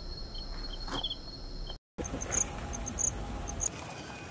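Crickets and other insects chirping: a steady high-pitched drone with short repeated chirps. It is broken by a brief drop to silence just before two seconds in, after which the chirps come back higher in pitch.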